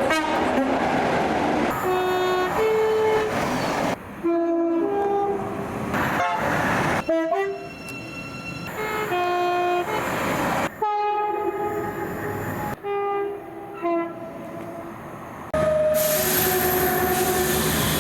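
Train horns sounding in a run of about eight short clips, each cut off abruptly. Most are two-note blasts, one tone then another, over the running noise of the trains.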